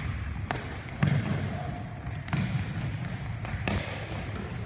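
Basketball bouncing on a hardwood gym floor, about four separate bounces, with high sneaker squeaks from players running, in the echo of a large gym.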